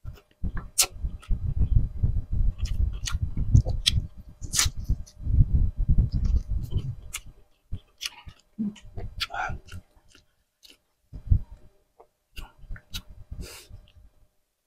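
Close-up chewing of grilled tuna jaw meat: steady wet mouth noise with many sharp clicks for about seven seconds, then thinning out to scattered clicks and short chews.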